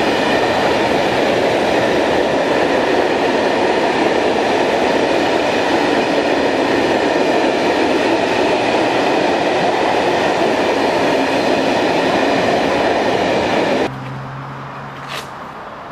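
Loaded box wagons of a scrap freight train rolling past close by: a loud, steady rumble of wheels on rail. Near the end it cuts off abruptly to a much quieter low hum.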